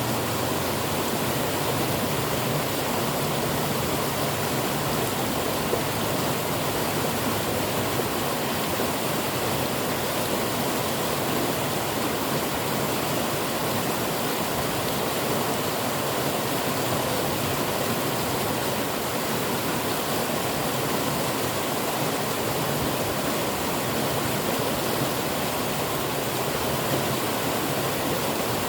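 River water flowing and splashing steadily, a continuous rushing noise with no breaks.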